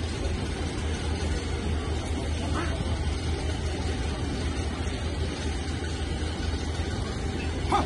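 Steady outdoor background noise with a low rumble, and one short sharp knock near the end.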